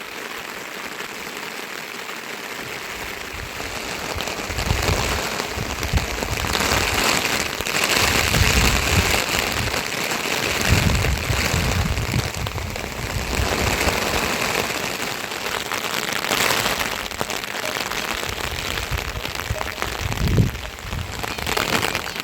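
Rain falling steadily, a dense hiss that grows louder about four seconds in, with uneven low rumbles now and then, as of wind buffeting the microphone.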